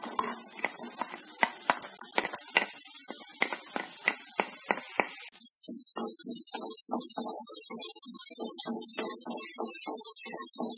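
Chopped onion sizzling in hot butter in a wok-like kadai, with a wooden spatula clicking and scraping against the pan. About five seconds in, a louder pulsing hum cuts in abruptly and covers the frying.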